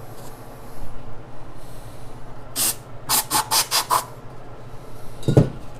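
Hand sanding on a metal part: one hissing rasp, then five quick back-and-forth strokes in about a second, followed by a single dull knock near the end.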